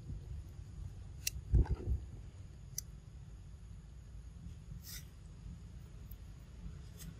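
Quiet outdoor background with a steady low rumble, a dull thump about a second and a half in, and a few faint sharp clicks.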